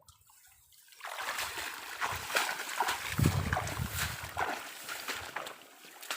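Water splashing and sloshing for about four seconds, full of small wet clicks, as a freshly hooked swamp eel thrashes in the water.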